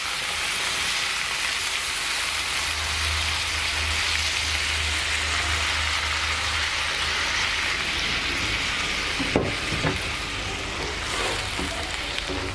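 Stuffed brinjals and masala sizzling steadily in hot oil in a pan, with one sharp click of a utensil about nine seconds in.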